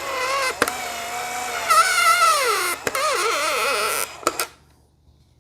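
A power drill runs, its whine wavering and dipping in pitch as the trigger and load change. It stops about four seconds in, followed by a few quick clicks.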